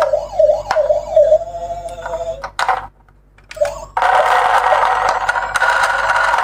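Toy ambulance's electronic siren wavering quickly up and down, with a few light clicks. It cuts off a little over two seconds in. After a short near-silent gap, a harsher, buzzier electronic tone starts about four seconds in and holds steady.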